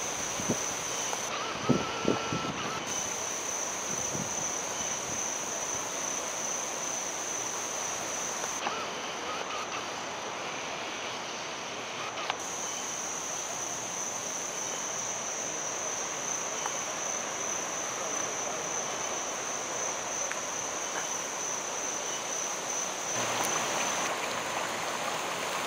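Steady high-pitched trill of insects over a light outdoor background. Near the end it gives way to the rushing and bubbling of floodwater welling up to the surface.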